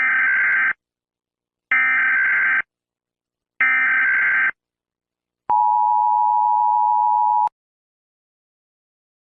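Emergency Alert System broadcast tones. First come three identical short bursts of SAME header data, each a harsh digital warble, about a second apart. About five and a half seconds in, a two-tone attention signal sounds steadily for two seconds and then cuts off abruptly.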